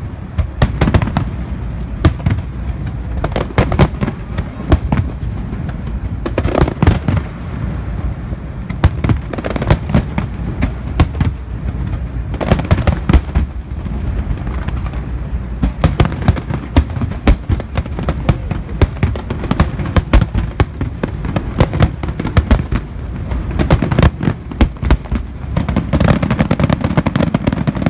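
Aerial firework shells bursting in a rapid, continuous barrage: sharp bangs and booms several times a second, with a steady rumble underneath.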